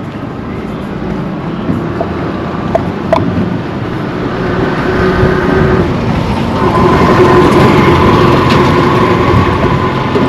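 A motor vehicle's engine running as it comes close and passes, growing louder and peaking about two-thirds of the way through, with a steady whine over the engine.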